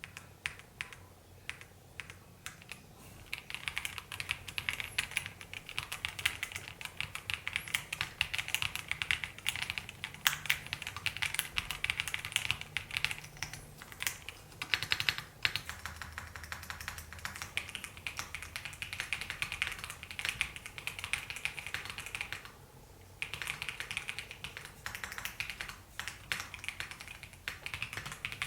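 Typing on an EPOMAKER CIDOO V65 V2 wireless mechanical keyboard: a few scattered keystrokes at first, then a fast, dense run of key clicks, broken by a brief pause about four-fifths of the way in.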